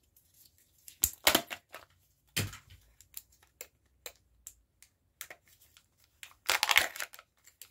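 Plastic packaging of a Kinder Joy toy being torn open and crinkled in short bursts, about a second in, again at two and a half seconds and near the end, with light clicks of small plastic parts in between.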